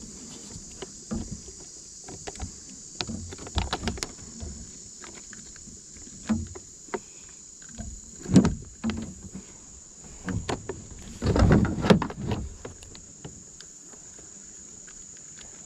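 Irregular knocks, bumps and rustles in a kayak as a just-caught smallmouth bass and gear are handled on board. The louder clusters come about halfway through and again near the end, over a steady faint high hiss.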